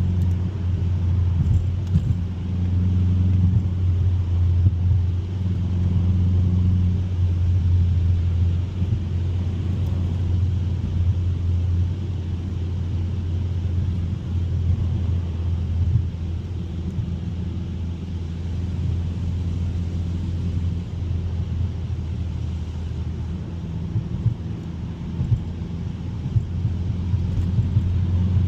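Steady drone of a 2021 Mazda 3 Turbo's 2.5-litre turbocharged four-cylinder and its tyres while cruising on a snowy road, a constant low hum with a few small knocks.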